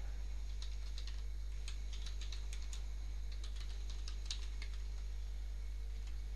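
Computer keyboard being typed on: faint, irregular key clicks, several a second, over a steady low hum.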